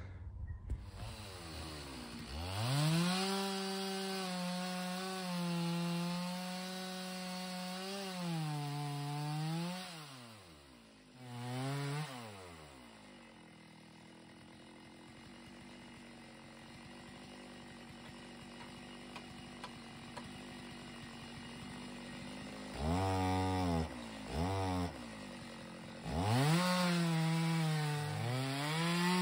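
Chainsaw ripping lengthwise through an oak log in a homemade Alaskan-style chainsaw mill, running at high revs under load. The revs drop off twice about ten seconds in and the saw runs much quieter for about ten seconds, then comes two short revs and it is back at full throttle near the end.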